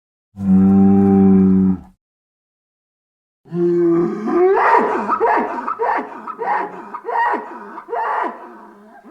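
Einiosaurus dinosaur sound effect: one long, low, steady cow-like bellow, then after a pause of about two seconds a run of about nine short calls that bend in pitch, roughly two a second.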